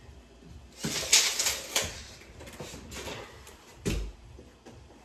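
A quick cluster of clattering knocks and scrapes about a second in, then a single heavier knock with a low thump near four seconds: wood and tools being handled during cabinet installation.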